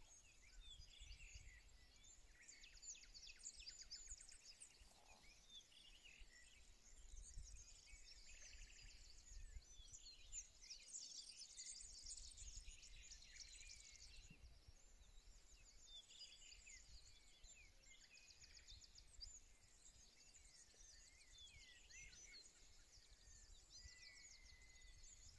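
Faint chorus of small birds chirping and trilling, many high calls overlapping, over a low steady rumble.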